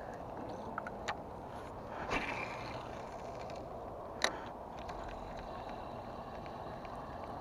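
Steady low hiss of wind and water, with light clicks of a fishing rod and spinning reel being handled during a cast: a short rustling swish about two seconds in and a single sharp click a little past the middle.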